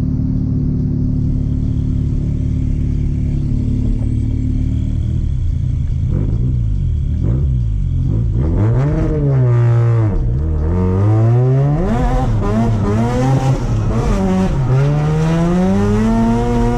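Mazda RX-7 FD3S's 13B twin-turbo rotary engine under way. It holds a steady pitch at first, then from about six seconds in it is revved up and down several times in quick succession, and it settles into a steady run near the end.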